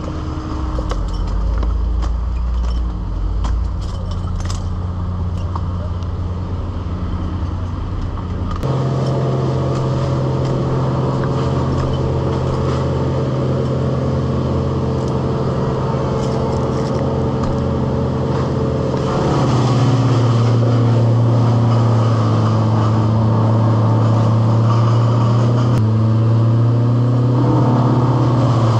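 An engine running steadily; its pitch steps up about 9 s in, then drops a little and grows louder about 19 s in.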